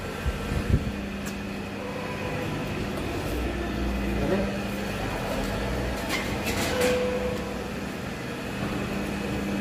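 Electric pani puri making machine running, its motor and rollers giving a steady hum, with a few short knocks just after the start and a brief clatter about six seconds in.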